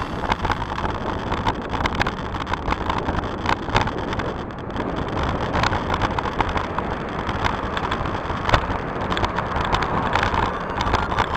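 Riding noise picked up by a bicycle-mounted camera: a steady rush of wind and tyres on asphalt, with irregular clicks and knocks as the bike and mount rattle over the road surface.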